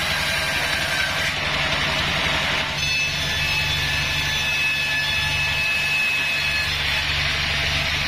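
Taiwanese-made Bandsaw36 band sawmill ripping Bayur timber: a steady low motor hum under the hiss of the blade cutting wood. A few seconds in, the hiss drops away, leaving the hum and a thin steady whine, and it returns near the end.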